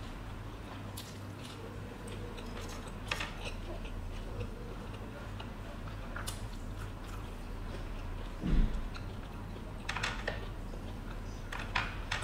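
Close-up eating sounds of a person chewing a meal of boiled pork, rice and stink beans by hand: scattered wet clicks and smacks of the mouth, with one dull low thump about eight and a half seconds in, over a steady low hum.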